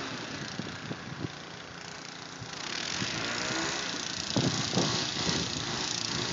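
Four-wheeler (ATV) engine running under a steady rushing noise that brightens about halfway through. A couple of light clicks come early and a few short rough noises in the second half.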